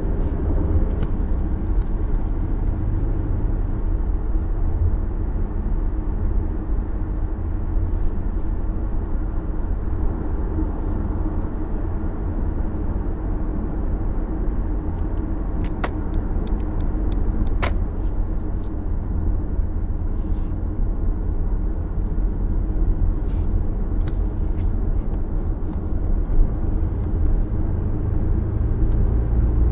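2019 Mercedes C200d estate's four-cylinder diesel cruising at highway speed: a steady low drone of engine and road noise, with a few faint clicks about halfway through.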